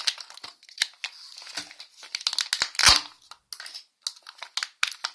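Foil wrapper of a Kinder Surprise chocolate egg crinkling and tearing as it is unwrapped by hand, with one louder knock about three seconds in.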